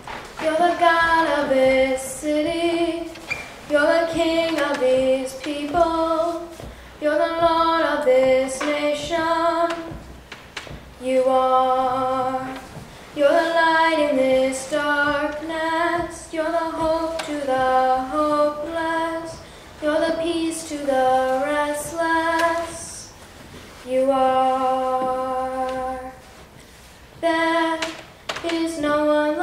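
A young girl singing solo and unaccompanied into a microphone, in short phrases with brief pauses between them.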